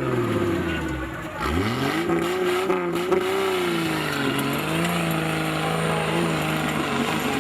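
Off-road 4x4's engine revving: the revs drop in the first second, climb again about a second and a half in, then hold high with the pitch wavering up and down.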